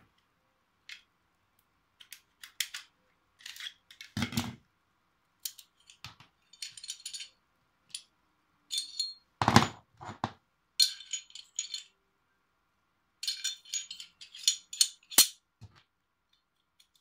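Metal-and-polymer clicks, clacks and rattles of a Glock 19 Gen 5 pistol being field-stripped by hand, its parts knocked together and set down. The clicks come irregularly, with the loudest knocks at about 4, 9½ and 15 seconds.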